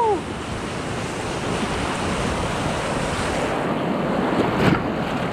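River water rushing through rapids, a steady hiss of whitewater, with wind on the microphone. A short sharp hit sounds about four and a half seconds in.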